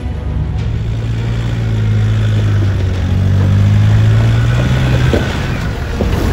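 Nissan Patrol 4WD's engine pulling steadily at low revs under load as it crawls up a deep rut, growing louder as it approaches and easing off about five seconds in. A couple of sharp knocks come near the end.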